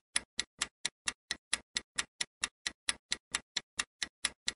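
Countdown-timer ticking sound effect: a clock ticking quickly and evenly, about four to five ticks a second. It marks the answer time running out on a quiz question.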